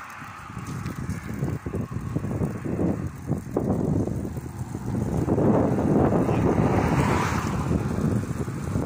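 Wind buffeting the phone's microphone in irregular gusts, growing louder through the second half.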